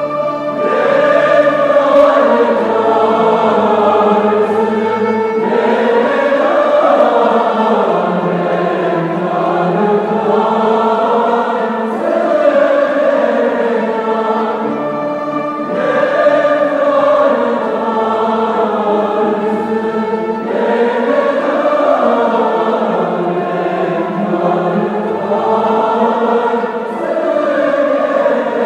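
Choir singing a piece of classical Turkish music, in long phrases that break about every four to five seconds.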